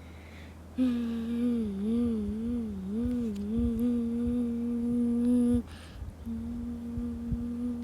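A hummed tone processed through a 4ormulator v1 effect unit. It starts about a second in, wavers up and down in pitch a few times, then holds one steady note, breaks off briefly and resumes on the same note. A steady low electrical hum runs underneath.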